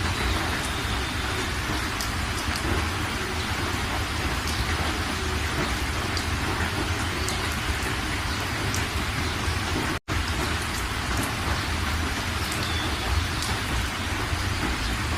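Steady rain falling on a surface: an even hiss with scattered sharp drop ticks. The sound cuts out for a split second about ten seconds in, then carries on.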